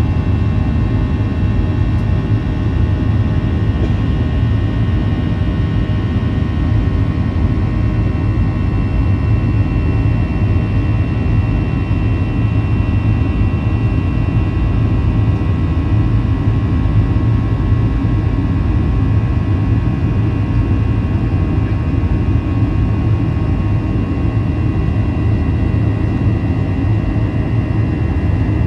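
Boeing 737-800's CFM56 jet engines running steadily, heard as a deep, even rumble with several steady whining tones above it, as from inside the airliner's cabin.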